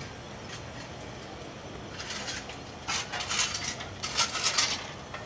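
A passenger train running slowly, a steady rumble with irregular metallic clattering and clinking that starts about two seconds in and grows louder.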